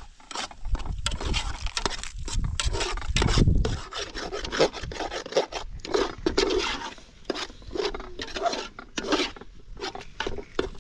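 Irregular rough scraping and rubbing strokes on wood, loudest about three seconds in.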